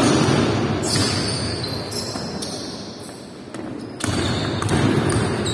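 A basketball being dribbled on a wooden gym floor amid players' running footsteps, echoing in a large sports hall; it quietens briefly about three seconds in and picks up again at about four seconds.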